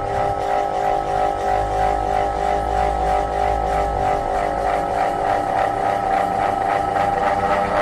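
Ceiling fan running very loudly: a steady whining hum of several tones, with an even pulsing several times a second.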